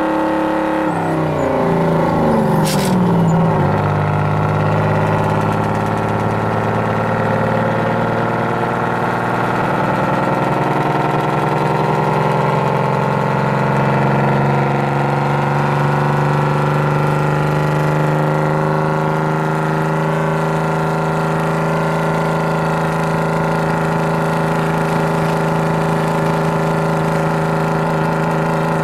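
Detroit Diesel 6-71 two-stroke inline-six in a Ford L9000 truck, heard from inside the cab as it pulls uphill. The revs fall over a couple of seconds near the start, with a single click, then hold at a steady pull.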